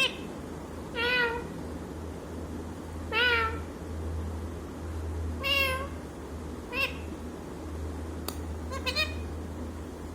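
Parrot mimicking a cat's meow: about six short meow-like calls, each rising then holding its pitch, one to two seconds apart, the last a quick double.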